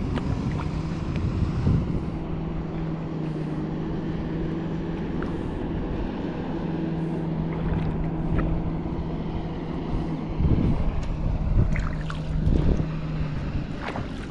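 A motorboat's engine droning steadily, a low hum that briefly drops out about six seconds in, over wind noise on the microphone. A few low bumps come in the last few seconds.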